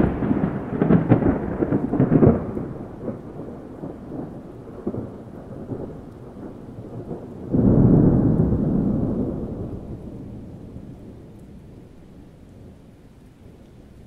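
Thunder: a crackling peal at the start that rumbles away over a couple of seconds, then a second sudden clap about seven and a half seconds in that rolls off slowly over several seconds.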